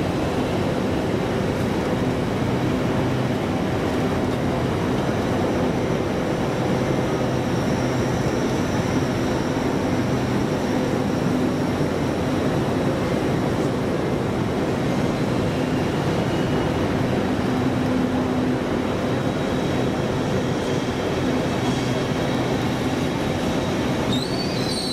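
LNER Azuma (Hitachi) train moving slowly along the platform: a steady rumble with a hum from its traction equipment and a faint high whine. A brief high squeal comes near the end.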